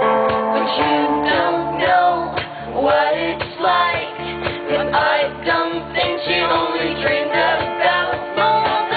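Live rock song: a woman singing over guitar and a steady beat.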